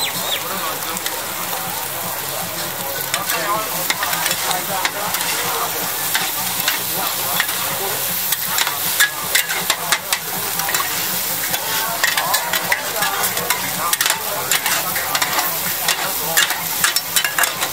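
Oyster omelette of egg and oysters sizzling steadily on a wide hot griddle pan, while two metal spatulas scrape and clack against the pan in bunches of quick strikes as it is chopped and turned.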